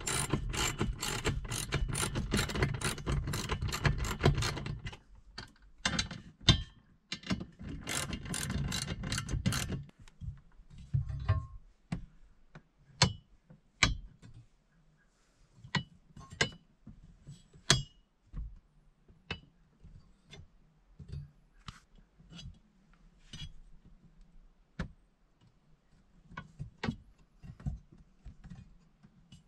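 Hand ratchet clicking in quick runs as the bolts of an articulating TV wall bracket are tightened, twice with a short break between. After that, scattered metal clicks and knocks as the bracket's swing arm is moved.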